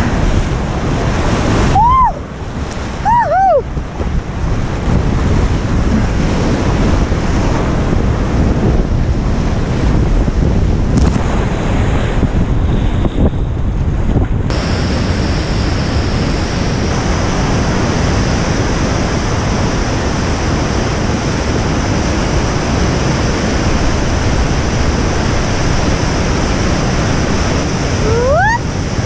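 River rapids at high spring flood, a continuous heavy rush of churning whitewater heard from a kayak in the waves, with wind buffeting the microphone. There are brief rising and falling tones about two and three seconds in and again near the end.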